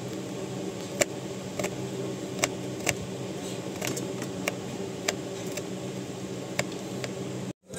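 Paring knife cutting small red onions on a plate, the blade giving sharp clicks against the plate roughly once or twice a second, over a steady low hum.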